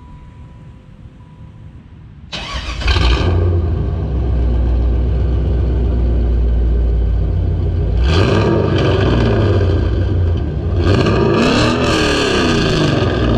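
Chevrolet LT1 5.7-litre V8 with long-tube headers, an off-road Y-pipe and SLP Loudmouth 1 mufflers starts up about two seconds in and settles into a loud, lopey idle. The throttle is blipped once about eight seconds in, then revved up and down a few times near the end.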